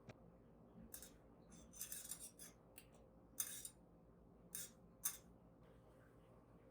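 A run of about six short, crisp kitchen-utensil handling sounds at irregular intervals, the sharpest two about a second and a half apart, over a faint steady room hum.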